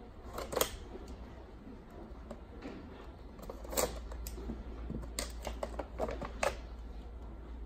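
Toy doll packaging being handled and opened: scattered sharp clicks and rustles of plastic and cardboard, irregularly spaced, bunched together around four seconds in and again between five and six and a half seconds.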